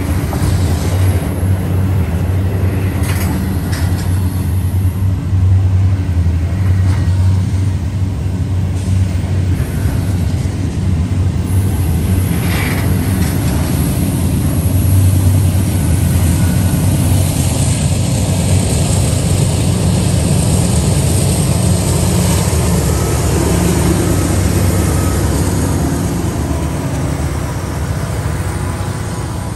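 Double-stack intermodal well cars rolling past close by: a loud, steady rumble and rattle of steel wheels on the rails.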